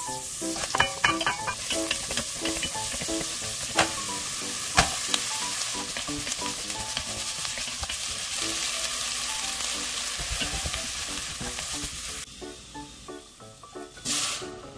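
Butter and diced onion, carrot and potato sizzling in a hot enamelled cast-iron pot while being stirred with a wooden spatula, with a few sharp knocks of the spatula against the pot. The sizzle stops about twelve seconds in, and near the end there is a short rush as chicken stock is poured in.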